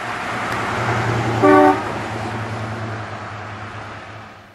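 1960 Chrysler 300F convertible with its 413 cross-ram V8 driving past, the engine and road noise swelling and then fading away, with one short toot of its horn about a second and a half in.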